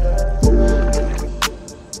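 Background music with a heavy bass beat: a deep bass note lands about half a second in and fades away, under steady ticks and a held chord.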